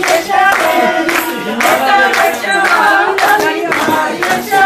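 Group of women singing Punjabi gidha boliyan, with steady hand clapping on the beat, about two claps a second.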